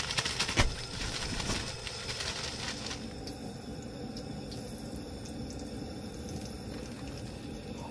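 Breaded walleye pieces sizzling as they fry in hot oil in a skillet on a propane camp stove: a steady sizzle. A few sharp clicks in the first second and a half.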